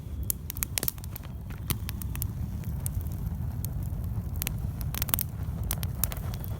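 Wood fire burning with irregular sharp crackles and pops over a steady low rumble.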